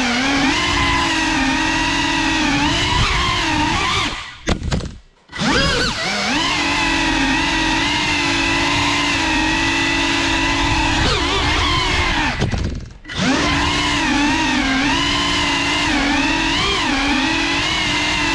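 GEPRC FPV quadcopter's brushless motors and propellers whining, heard from the onboard camera, the pitch rising and falling with throttle. The whine drops almost to nothing twice, about four seconds in and again near thirteen seconds, then spools back up.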